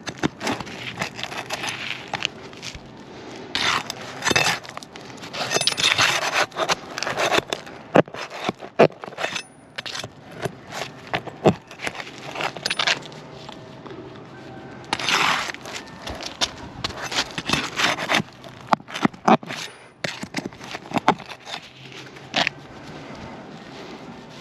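Nails being pried out of asphalt roof shingles with a hand tool: irregular scraping and sharp metallic clicks as the old shingles are lifted.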